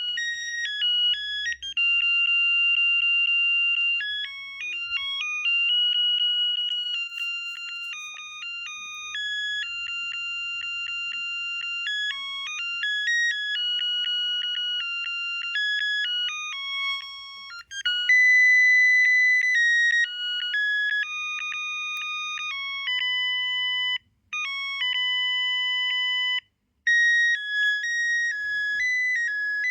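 Panasonic KX-TGBA20 cordless phone handset playing its built-in ringtones: simple electronic melodies of high beeping notes, one tune after another, broken by a few short gaps.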